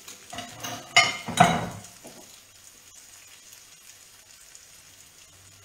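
Two sharp clinks of kitchenware about a second in, ringing briefly, then a faint steady sizzle from the pan of zucchini and cherry tomatoes.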